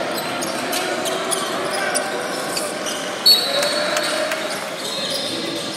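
Basketball bouncing on a hardwood gym floor, with the sharp knocks echoing in the hall. About three seconds in, a referee's whistle gives one loud short blast, and a fainter whistle tone follows near the end.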